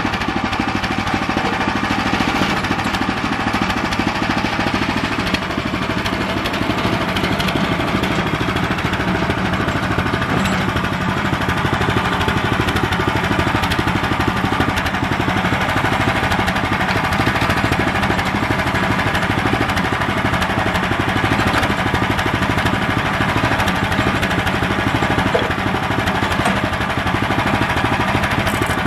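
Central Machinery (Harbor Freight) bandsaw mill running steadily under its gas engine while its band blade saws through a soft pine log to make boards. It is loud and even throughout.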